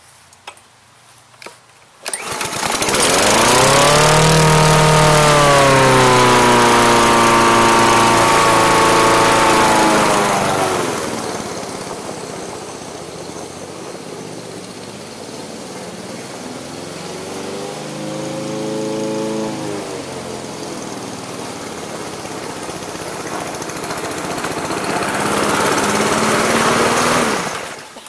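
Troy-Bilt TB240 mower's Honda GCV160 engine starting suddenly about two seconds in and running under load while mowing, its pitch sagging at times as it bogs down in grass cut too low. It goes quieter for a while as the mower moves away, grows louder on the way back, then stops abruptly near the end.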